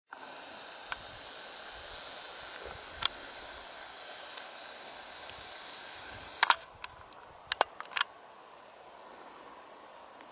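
Handheld camera handling noise: sharp clicks, a few single ones and then a quick cluster a little past the middle, over a steady hiss that drops quieter after the cluster.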